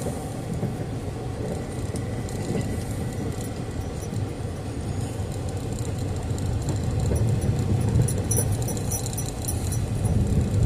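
A car driving, heard from inside the cabin: a steady low rumble of engine and road noise. Faint high-pitched rattling joins in over the last few seconds.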